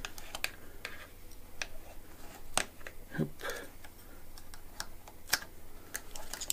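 Irregular small metallic clicks and taps as a thin hex key is worked through a mountain bike's rear-suspension linkage bearing to free the spacer, a few of them sharper than the rest.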